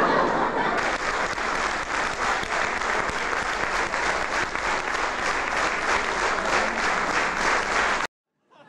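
Large audience in a hall applauding steadily; the applause cuts off abruptly near the end.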